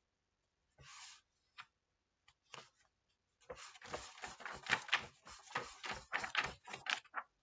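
Pages of a paper book being handled and flipped: a short rustle about a second in, a few single flicks, then a quick run of papery flicks and crackles for the last few seconds.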